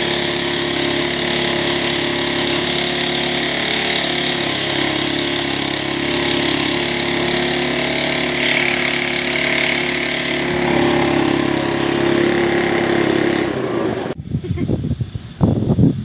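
A small motorcycle engine running steadily, belt-driving an air compressor pump mounted on its tank. The machine sound cuts off abruptly about fourteen seconds in.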